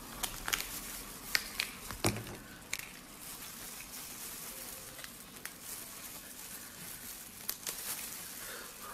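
Crayfish shells cracking and clear plastic gloves crinkling as a cooked crayfish is pulled apart by hand: scattered small sharp cracks and rustles, most of them in the first few seconds and again near the end.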